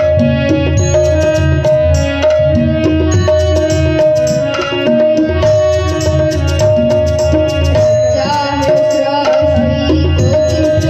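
Live devotional bhajan music: tabla keeping a steady rhythm under a held keyboard melody, with a young male singer's voice coming in about eight seconds in.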